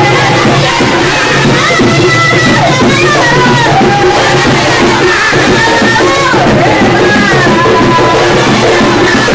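A woman singing a Panamanian tamborito into a microphone, backed by a steady beat of hand drums.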